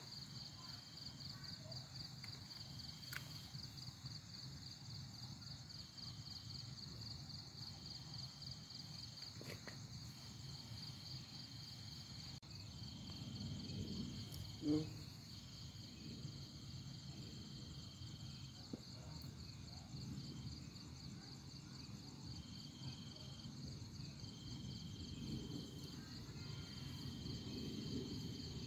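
Insects calling: a faint, steady, fast-pulsing high trill, with a second, slightly lower insect buzzing in on-off runs of about a second, over a low murmur.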